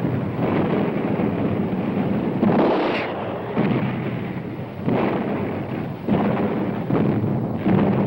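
Battle sound effects: a continuous heavy rumble punctuated by a series of blasts, roughly one every second or so.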